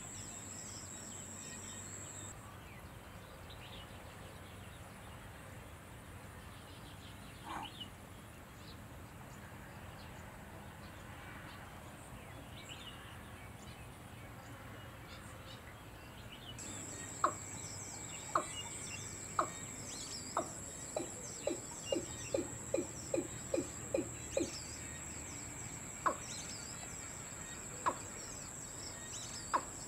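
Watercock calling: a series of short, sharp notes about a second apart that speed up to about three a second, then slow to single notes near the end. A steady high-pitched insect trill runs behind, dropping out for much of the first half.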